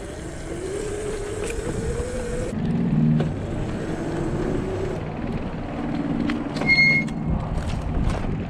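Razor MX500 electric dirt bike being ridden: the electric motor whines, its pitch rising and falling with speed, over a steady rumble of wind on the microphone and tyres on rough ground. A brief high squeak comes about seven seconds in.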